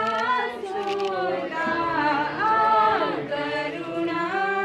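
A group of voices singing together in long held notes that glide from pitch to pitch, like a choir.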